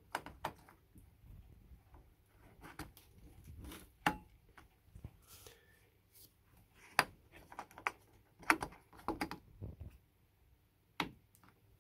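Scattered light plastic clicks and taps as a parking-light bulb holder is twisted in its socket on the back of a Citroën C4 Grand Picasso headlamp and the plastic housing is handled.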